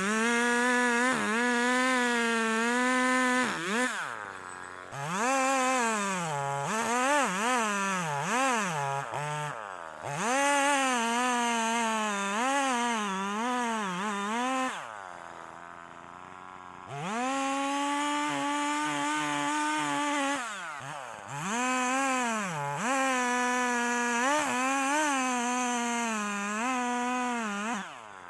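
Husqvarna 340e two-stroke chainsaw bucking a felled chestnut tree. The engine is revved up again and again, its pitch sagging and recovering as the chain cuts, with steady full-throttle stretches. About midway it drops to idle for a couple of seconds.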